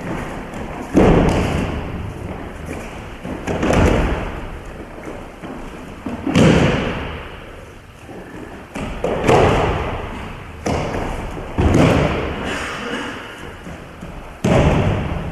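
Aikido attackers being thrown and slamming onto the padded mat in breakfalls: about six heavy thuds, two to three seconds apart, each echoing in the hall.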